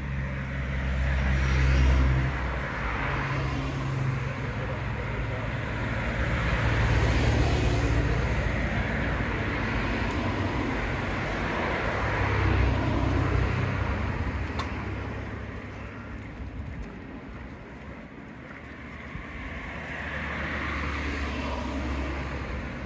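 A vehicle engine runs with a low, steady drone that swells and eases several times.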